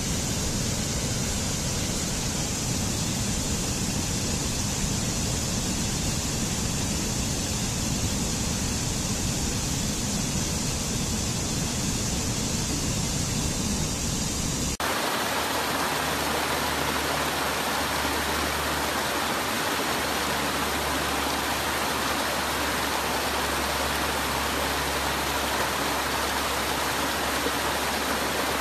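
Rushing stream water tumbling over rocks, a steady roar. About halfway through the sound changes suddenly, losing its low rumble and turning brighter, as it switches to another stretch of water.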